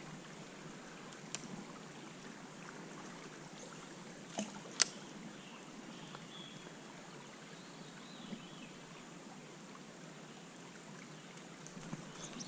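Low, steady rush of flowing stream water, with three sharp clicks, the loudest nearly five seconds in.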